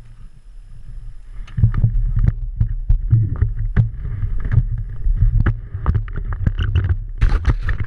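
Rustling and irregular knocks of a moving camera being handled, over a steady low rumble; the noise grows louder about a second and a half in.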